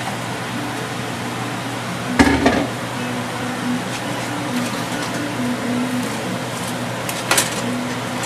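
A wooden spatula knocks against a wok twice, about two seconds in and again near the end, as spinach is turned into tomato sauce. A steady sizzling hiss runs underneath.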